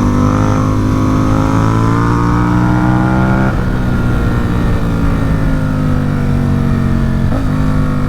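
Ducati Supersport 950 S's L-twin engine through a Competition Werkes aftermarket exhaust, pulling with a slowly rising pitch under acceleration. About three and a half seconds in the pitch drops suddenly as it shifts up a gear, then it runs on steadily, with a short break near the end.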